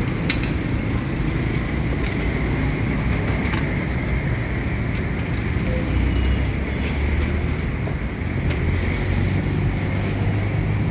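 Steady low rumble of street traffic, with a few sharp light clicks from metal tongs handling the flatbreads at the oven.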